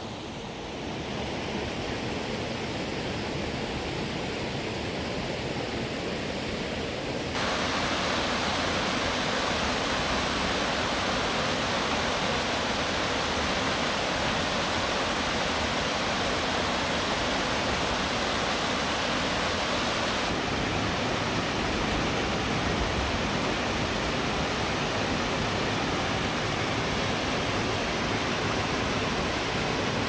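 Canyon stream rushing over rocks, a steady hiss of running water. It becomes abruptly louder and fuller about seven seconds in.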